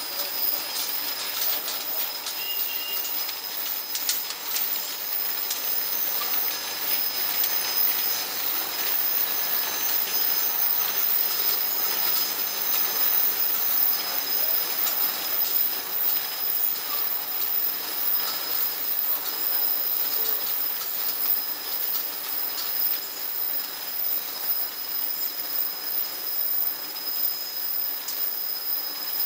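Vial washing and drying oven running: a steady hiss with a thin high whine over it.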